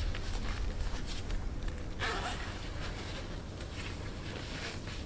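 Side zip of a new, tight-fitting faux-leather thigh-high boot being worked up the leg by hand in short scraping pulls, with the stiff boot material rustling and creaking. The loudest scrape comes about two seconds in.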